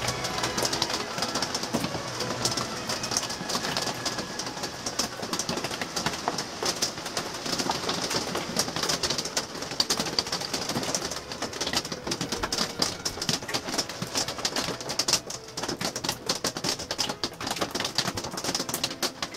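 Rain falling: a dense, irregular patter of drops.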